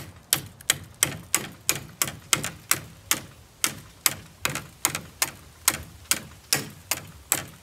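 Steady, rapid chopping: a hand blade striking a bamboo stalk and its side branches, about three sharp knocks a second, as the branches are hacked off the pole.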